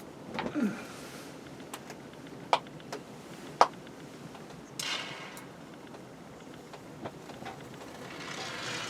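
Handling and work noises: two sharp clicks or knocks a second apart in the middle, with short bursts of hiss before and after and a longer hiss near the end.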